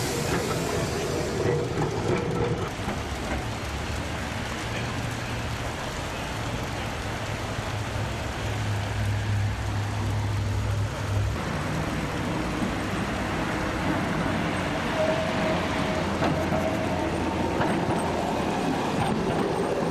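Heritage electric trams running past on street track: wheel and rail noise with a steady low hum that is strongest midway.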